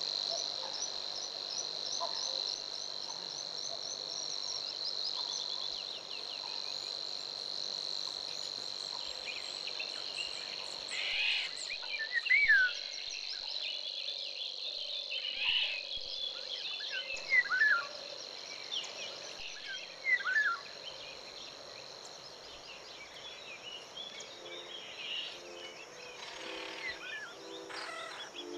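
Forest ambience: a steady, high-pitched insect drone with scattered bird calls and chirps, busiest in the middle of the stretch. The drone fades out in the last third.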